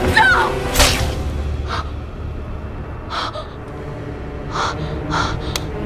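A sharp, loud gasp about a second in, followed by several shorter breathy gasps spaced roughly a second apart, over low, dark orchestral film music.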